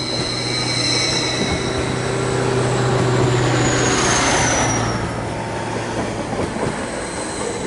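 Transport for Wales Stadler FLIRT multiple unit passing close by along the platform: a steady low hum under high whines, one of which falls in pitch as the train goes by. Loudest about three to four seconds in.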